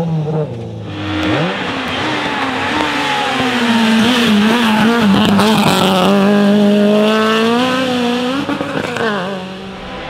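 Racing hatchback engines revving high as they pull out of a hairpin, the pitch climbing and dropping with throttle and gear changes. The sound fades near the end.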